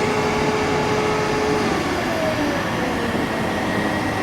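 Crane running steadily as the load is lowered, a mechanical drone with a whine that drops in pitch about halfway through.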